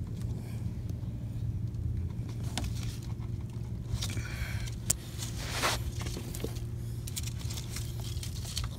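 A steady low hum like a running vehicle engine. Over it, a few light scrapes and clicks about halfway through, as the red backing is peeled from the adhesive strip of a rubber bumper lip pressed on by hand.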